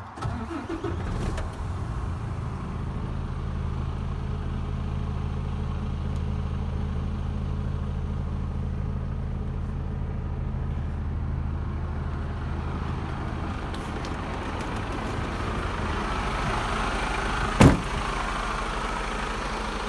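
Mercedes-Benz Actros 2445's 12.8-litre straight-six diesel cranking and catching from cold, then idling steadily. Near the end a cab door slams shut once.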